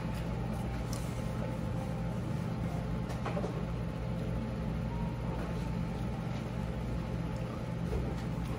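Steady low mechanical hum of a restaurant's ventilation, with a faint steady whine above it and a few faint clicks.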